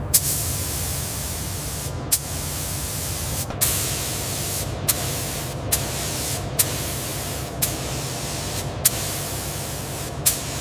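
Paint spray gun hissing steadily as a coating is sprayed, with sharp clicks about every second or so.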